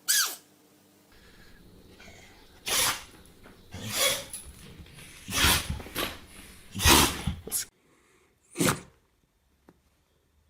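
A run of short, sharp sneezes from pets, about eight in all: one at the start, a quick series through the middle, and one more near the end.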